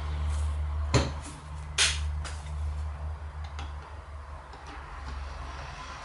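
Metal clinks of wrench sockets and extensions being handled and fitted together: two sharp clinks about a second and two seconds in, then a few lighter taps, over a steady low hum.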